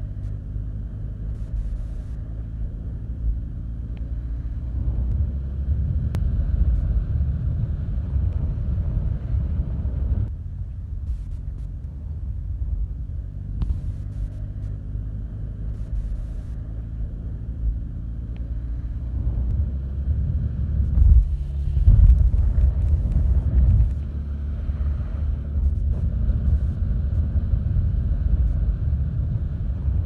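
Engine and propeller of an aerosled (propeller-driven ice sled) running at speed across sea ice, heard from aboard as a steady low drone that swells louder about two-thirds of the way through.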